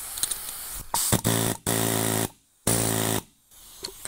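Pneumatic air hammer fired in about four short bursts of roughly half a second each, a steady buzzing rattle, as its chisel cuts at a seized seat bolt in the car floor.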